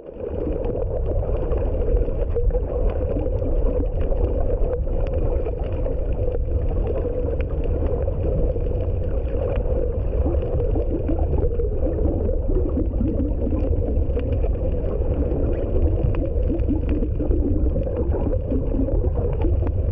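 Muffled underwater ambience picked up by a waterproof compact camera's microphone while submerged: a steady low rumble and water hiss with many faint clicks and crackles.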